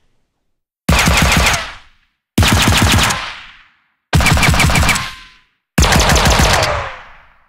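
Suppressed gunfire sound effect with ricochets: four bursts of rapid shots, each lasting under a second and fading out, with thin falling whines of ricochets in the tails.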